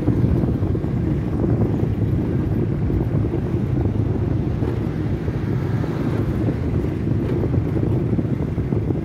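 Steady wind rumble buffeting a handheld phone's microphone, with a motorbike engine running underneath while riding along the road.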